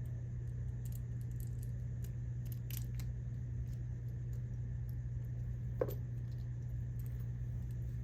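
Faint scattered clicks and ticks of small lock parts being handled while an American Lock padlock cylinder is reassembled, with one sharper click a little past halfway, over a steady low hum.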